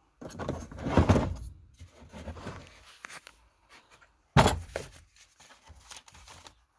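Plastic tool case being handled and cables rummaged inside it: a heavy bump about a second in, a sharp knock a little after four seconds, then light clicks and rustling of cords.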